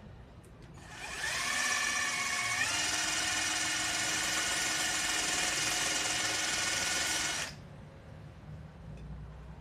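A small electric motor starts with a whine that climbs in pitch in two steps over about two seconds, runs steady, and cuts off abruptly about seven seconds in.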